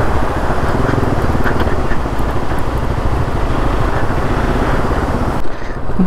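Motorcycle engine running while riding, under a loud steady rushing noise that drops away sharply about five seconds in.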